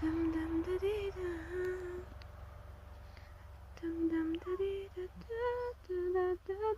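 A voice humming a slow melody in held notes, in two phrases with a pause of about two seconds between them, over a steady low rumble.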